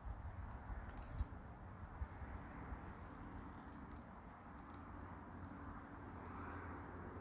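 Faint clicks and rustling of a small steel spring trap and its wire being handled against a tree trunk, over steady outdoor background noise, with a few short faint high peeps.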